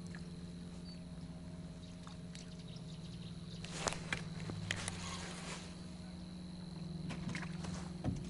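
A boat motor hums steadily, with scattered sharp clicks and knocks about four seconds in and again near the end.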